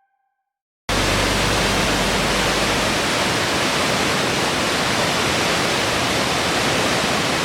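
A waterfall's steady rush of falling water, cutting in suddenly about a second in after near silence.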